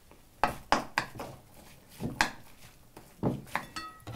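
Wooden spoon knocking and scraping against a bowl while tossing diced vegetables in oil, about eight irregular knocks, with a short ringing clink near the end.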